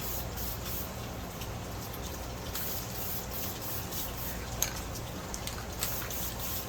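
Faint wet squishing and small clicks of sticky filter oil being worked into a foam air filter by hand, over a steady low hum.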